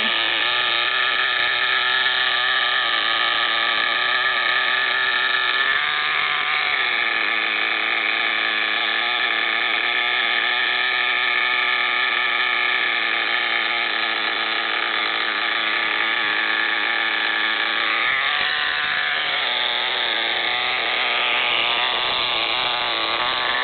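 Nitro RC truck's small glow engine idling with a steady, high buzz that shifts slightly in pitch a couple of times. It keeps running though the truck no longer responds to the radio, its batteries having come loose.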